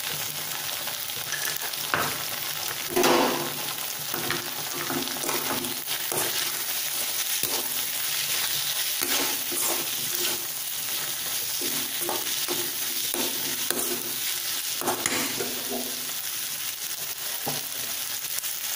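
Baby corn and capsicum stir-frying in a kadai: a steady sizzle, broken by repeated scrapes and taps of a perforated steel ladle against the pan as it is stirred, the loudest about three seconds in.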